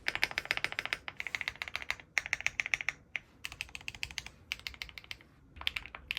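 Rapid typing on a mechanical keyboard fitted with Swagkey HMX Catmint switches: quick runs of clacky keystrokes in about five bursts, with brief pauses between them.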